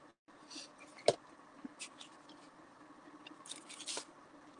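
Craft supplies being handled on a tabletop: faint rustles of plastic sheets and card, with one sharp click about a second in and a brief louder rustle near the end.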